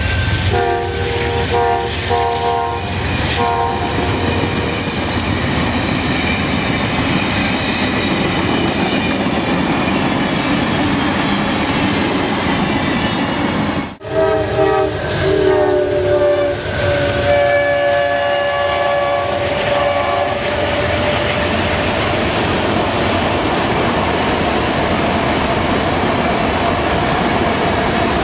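Amtrak passenger train passing at speed, its horn giving short blasts in the first few seconds over the steady rumble and wheel clatter of the passing cars. After an abrupt cut about halfway through, a second passenger train blows a longer horn chord for several seconds, then its cars rush past with a steady rumble.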